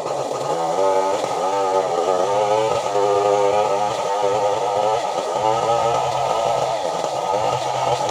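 Chainsaw engine running, its pitch wavering up and down.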